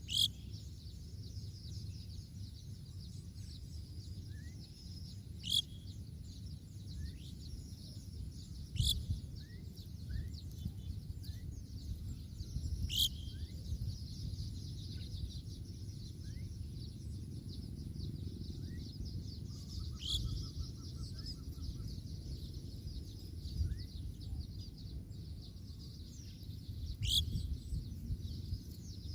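Birds calling in the open. A loud, sharp, downward-sweeping call comes six times, several seconds apart, over many small quick chirps and a brief rattling trill about two-thirds through. A steady high hiss and a low rumble run underneath.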